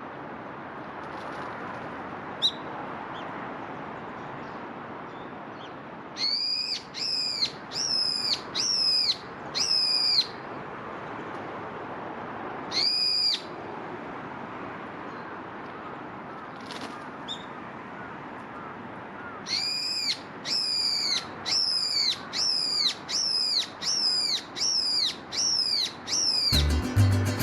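A bird repeating a loud, clear, arched whistled call over steady outdoor background noise. The calls come in a run of five, then a single call, then a long run of about ten at roughly one a second. Background music comes in right at the end.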